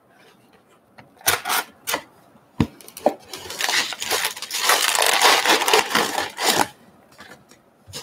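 Cardboard trading-card hobby box being opened and its wrapped packs handled: a few sharp taps and snaps of the card stock, then about three seconds of loud crinkly rustling as the packs are pulled out of the box.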